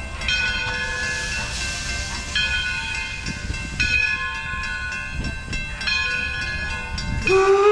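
1897 Baldwin 4-4-0 steam locomotive (Detroit and Lima Northern No. 7) running with its train. Near the end its steam whistle opens, rising briefly in pitch and then holding steady.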